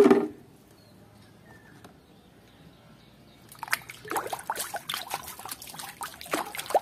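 Water splashing and trickling as plastic toy animals are rinsed by hand in a tub, starting about halfway in after a quiet stretch, with small irregular splashes and knocks.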